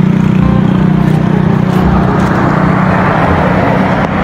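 Motor vehicle engine running close by with a steady low hum, and a rushing traffic noise that grows louder from about halfway in.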